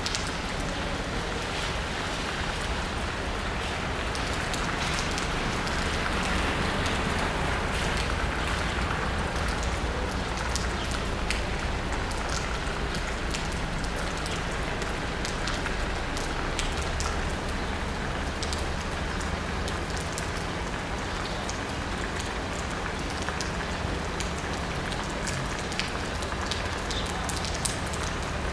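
Steady rain pattering on asphalt and rooftops, with many individual drops ticking sharply through it, over a steady low rumble.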